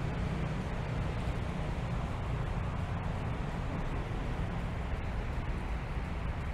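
Steady low rumble with a hiss of outdoor background noise, without clear separate events.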